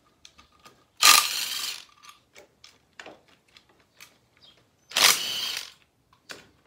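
Cordless power driver spinning out the bolts on a motorcycle's chain-sprocket cover: two short runs of under a second each, about a second in and again about five seconds in, each starting sharply, with light clicks of socket and bolts being handled in between.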